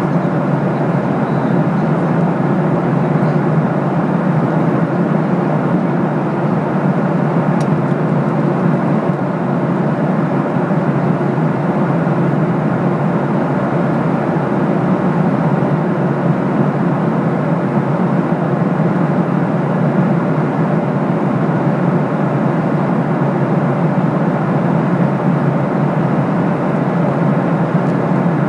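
Steady cabin drone of a Boeing 737-800 in cruise, heard from a window seat: an even rushing noise that holds constant with no change in pitch or level.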